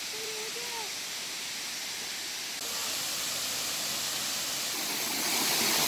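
Steady rushing of stream water, a continuous hiss that gets a little louder twice.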